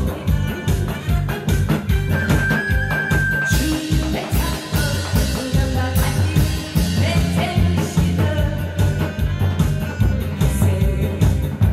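A woman singing live into a microphone over a loud amplified backing track with a steady drum beat.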